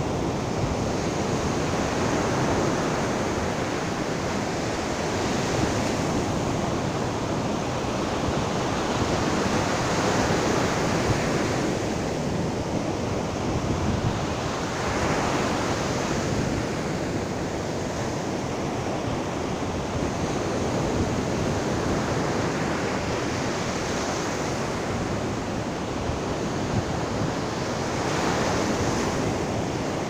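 Surf: small waves breaking and washing up a sandy beach, a continuous rush that swells every few seconds as each wave breaks.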